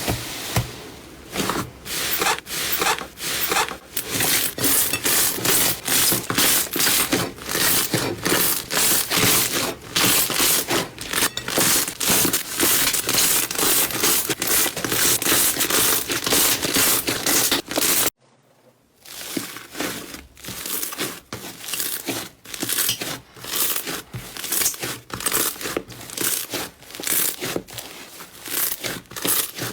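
Slime being squeezed and worked by hand, making dense crackling with many small pops a second. The sound cuts off abruptly a little past halfway, then after a brief gap similar crackling resumes, somewhat quieter.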